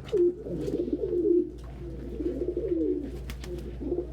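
Domestic pigeons cooing: several low, falling coos overlapping one another, with a few light clicks among them.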